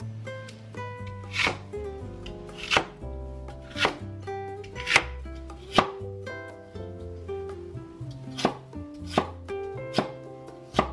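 Chinese cleaver chopping lotus root on a wooden cutting board: about nine separate sharp chops, roughly one a second, over soft background music.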